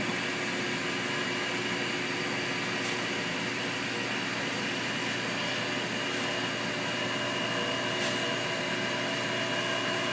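LabVolt mini CNC desktop mill's spindle running steadily: an even motor hiss with a constant high whine, working plastic stock, with a couple of faint ticks.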